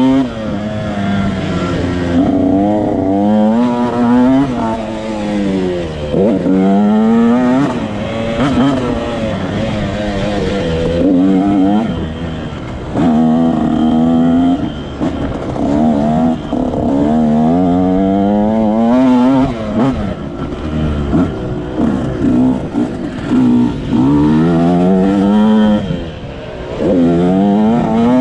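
Motocross dirt bike engine heard close up from on board, revving hard through the gears: its pitch climbs again and again and falls back at each shift, with a few brief throttle cuts where the level drops.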